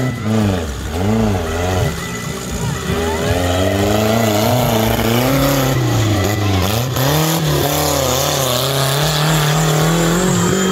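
Tubular off-road buggy's engine revving in quick repeated bursts, then pulling up to high revs and holding there under load.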